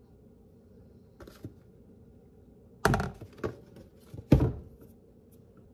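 A few sharp knocks and clatters of a fork and containers against a plastic mixing bowl and countertop while dry flour and cornstarch are handled; the loudest knock comes a little after four seconds in.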